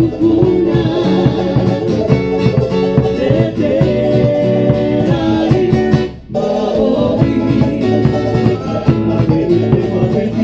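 Live Tahitian band music: acoustic guitar and ukulele strummed fast over a large drum, with a woman singing. The music drops out for a moment about six seconds in, then comes back.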